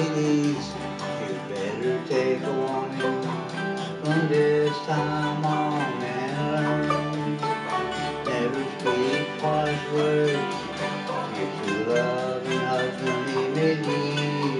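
A group of acoustic guitars strumming a country folk tune with a bass line underneath, with singing at times.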